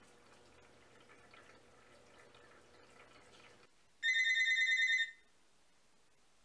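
Intelbras cordless phone ringing: one fast-warbling electronic ring about a second long, starting about four seconds in. Before it, faint water sounds from a top-loading washing machine, which cut off just before the ring.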